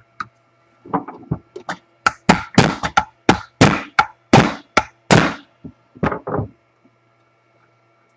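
About a dozen sharp knocks and thunks over roughly five seconds, loudest in the middle, as a stuck part of a Milwaukee portable band saw is struck to free it; the part does not come loose.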